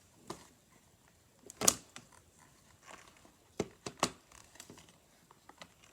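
Plastic toy playset pieces being handled and set down: a few scattered clicks and taps, the loudest about a second and a half in.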